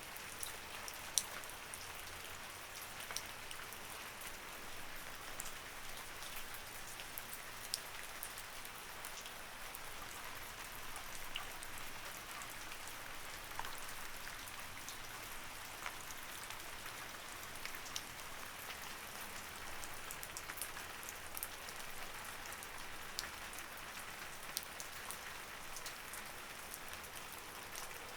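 Light rain falling steadily, a soft even hiss with many individual drops ticking sharply on a surface throughout.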